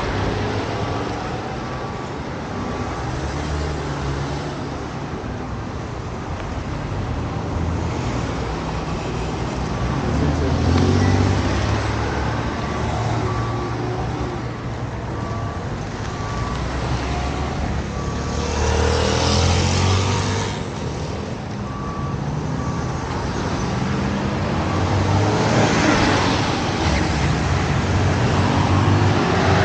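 Street traffic: vehicle engines running and vehicles passing, with a steady repeating electronic beep through the first half.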